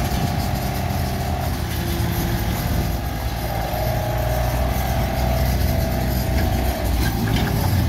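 Mini excavator's diesel engine running steadily under load as the machine works its arm and bucket, with a higher whine over it that comes and goes.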